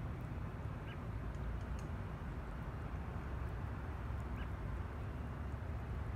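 Steady low outdoor rumble, with two short high chirps, one about a second in and one about four and a half seconds in.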